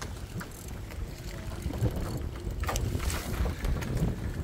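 Wind buffeting the microphone over a steady low rumble of choppy sea, with water splashing against the side of a small boat about three seconds in.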